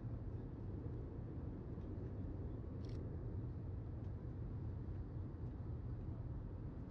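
Airbus A319 cabin noise: the steady low rumble of its CFM56 engines and airflow heard from a window seat. A brief faint click about three seconds in.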